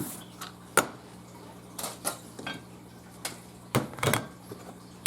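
Irregular clinks and taps of small metal objects, a handful of separate sharp knocks, as hand tools and a die-cast car body are handled and set down on a work surface.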